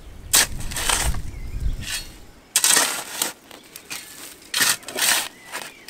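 Long-handled hoe chopping into dry, dusty soil, several separate strikes and scrapes with dirt flying off the blade.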